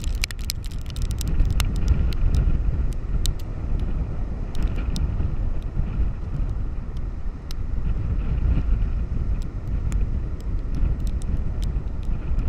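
Storm-force wind buffeting the microphone with a continuous low rumble, over the wash of heavy surf, with scattered sharp ticks against the microphone.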